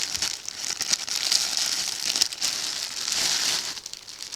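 Plastic shipping bag crinkling as it is handled, an irregular rustle with sharp crackles.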